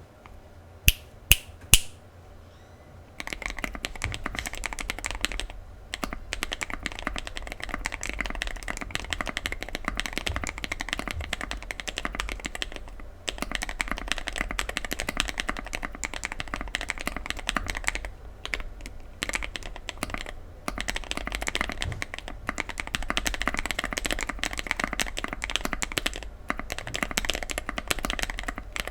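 Mechanical keyboard being typed on fast and continuously, a dense run of poppy, clacky, thocky keystrokes with a few brief pauses. Three sharp separate clicks come just before the typing starts, about a second or two in.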